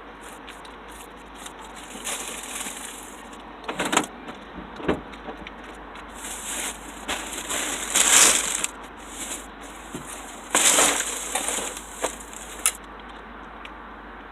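Plastic trash bags and packaging rustling and crinkling in irregular bursts, with a couple of sharp knocks, as bags of discarded goods are handled.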